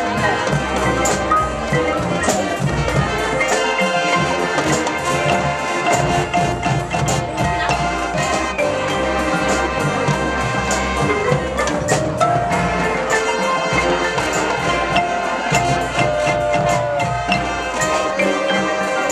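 High school marching band playing: brass holding sustained notes over steady percussion strikes.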